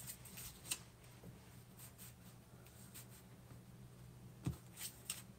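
Paper pieces of a handmade card being handled and pressed down on a desk: faint paper rustling with a few light taps, one about a second in and a quick cluster near the end.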